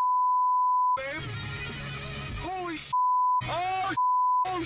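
Censor bleep: a steady pure beep tone that cuts in and out four times, broken by short bursts of a man's voice crying out with long gliding pitch. The bleep blanks out words, typical of bleeped profanity.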